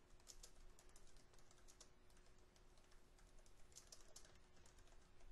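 Faint typing on a computer keyboard: an irregular run of quick key clicks.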